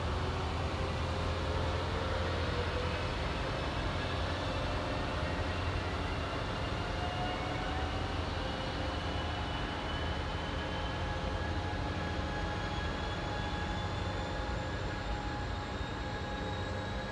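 Siemens SC-44 Charger diesel locomotive running under power: a steady low engine hum with a whine that rises slowly in pitch as the train gathers speed.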